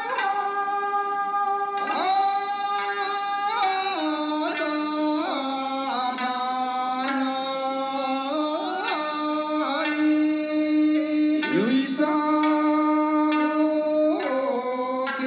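Men's voices singing a Yaeyama classical folk song together, accompanied by sanshin (three-stringed Okinawan lutes) and a transverse bamboo flute, with long held notes that slide up into each new pitch.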